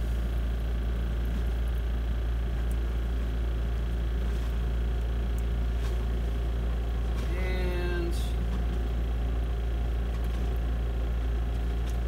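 Spin dryer of a Best Choice Products portable twin-tub washing machine running steadily, a constant low hum, spinning the wash water out of the clothes through the drain hose.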